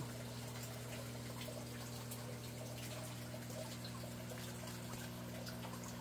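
Water running and trickling in an aquaponics system, steady and faint, over a steady low hum.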